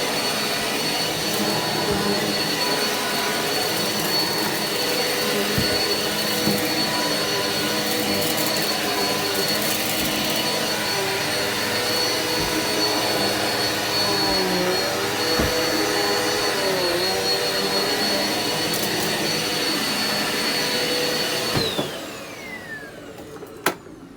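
Eureka vacuum cleaner running steadily with a high motor whine, then switched off about three-quarters of the way through; the whine falls as the motor spins down, followed by a single sharp click.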